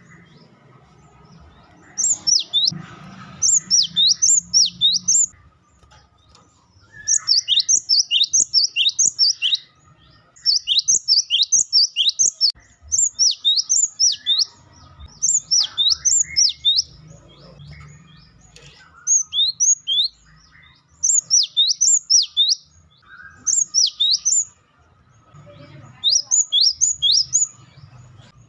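Cinereous tit (gelatik batu) giving its loud wucitan song: bursts of four to six quick high notes, each falling in pitch, repeated with pauses of a second or two between bursts.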